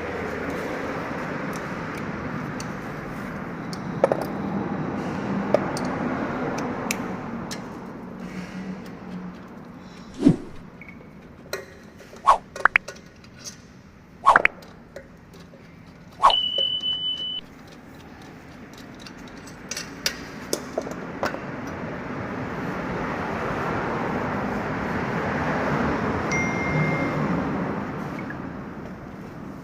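Road and tyre noise inside a moving Toyota Camry, with sharp knocks and clinks at uneven intervals: the steering rattle of a worn EPS steering motor gear in the steering column. A short steady beep sounds about halfway through.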